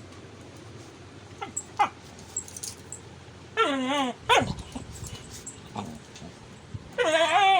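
A dog whining and yelping: short falling yelps about one and a half seconds in, then a longer wavering whine near the middle, a sharp yelp right after it, and another wavering whine near the end.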